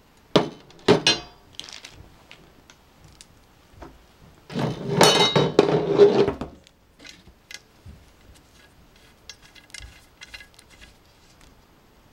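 White metal tubes and frame of a rolling cart knocking and clinking against each other and the table as they are handled: three sharp knocks in the first two seconds, a denser clatter lasting about two seconds about halfway through, then scattered light ticks.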